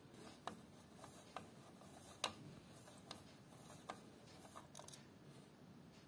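Near silence broken by a few faint, scattered handling clicks and taps, with one sharper click about two seconds in.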